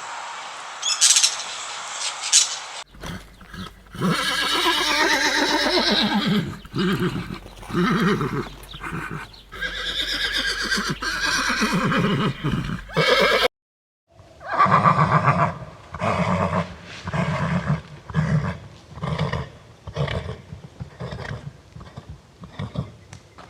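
Horse whinnying, long calls that waver and fall in pitch. After a brief break about 13 seconds in, a run of shorter repeated calls follows.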